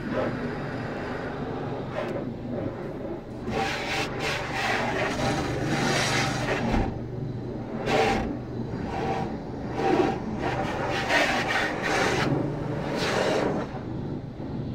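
Car wash heard from inside the car's cabin: brushes and water spray rubbing and beating over the body and windshield in uneven surges, over a steady low hum.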